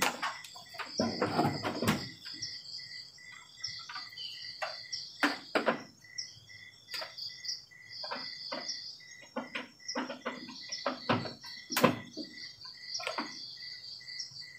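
Insects chirping steadily in a fast pulsed rhythm, about three to four chirps a second. Over it come scattered sharp clicks and knocks and a short stretch of rubbing about a second in, from the LCD TV's plastic case being handled and wiped.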